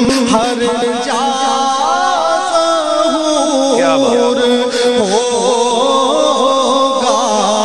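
A man reciting an Urdu naat, singing long melismatic phrases with wavering ornaments into a microphone, over a steady low drone.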